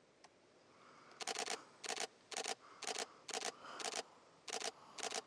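Canon 90D DSLR shutter firing in short continuous-shooting bursts of a few rapid clicks each, about eight bursts roughly half a second apart, starting about a second in.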